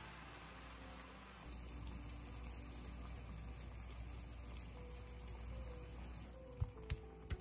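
Water just poured into a hot pan of ground pork, heating with a soft, faint watery hiss. Near the end come a few sharp taps, a wooden spatula knocking against the pan.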